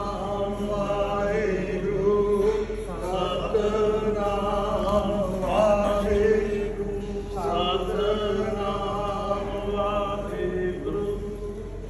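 Voices chanting a Sikh devotional hymn together, in repeated sung phrases about every two seconds over a steady low hum.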